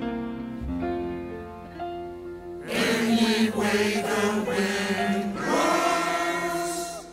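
Closing bars of a song: sustained instrumental chords, then about three seconds in a group of voices singing long held notes together, cut off just before the end.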